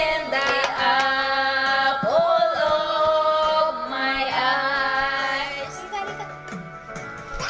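Women singing karaoke into a handheld microphone over a backing track, with long held, wavering notes.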